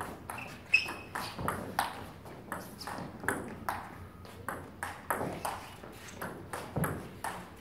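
Table tennis rally: the celluloid ball clicking off the rubber-faced paddles and bouncing on the table, about three sharp ticks a second in a quick back-and-forth.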